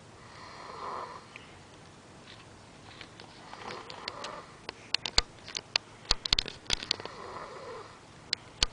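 A sleeping person snoring softly, three slow breaths about three and a half seconds apart. Louder sharp clicks come in a cluster between the second and third snores and twice more near the end.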